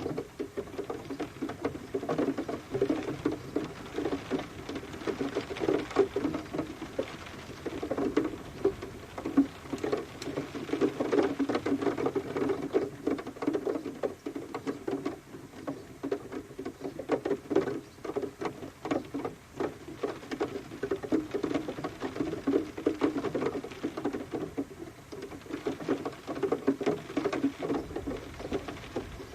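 Rain pattering: a dense, uneven stream of drops tapping on a hard surface.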